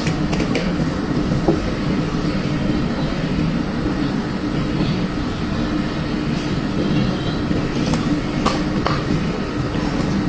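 Steady low rumble and hum of a moving vehicle, with a couple of faint clicks.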